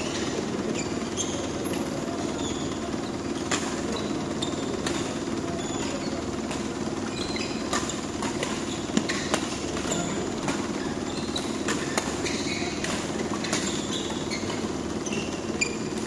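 Badminton rally in a hall: rackets striking the shuttlecock in sharp, irregular cracks, the loudest about nine seconds in, with short shoe squeaks on the court floor, over a steady hum.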